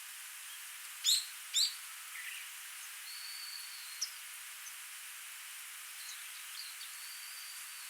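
Two sharp bird calls about a second in, a softer call soon after, and later thin high held notes, over the steady hiss of a small stream.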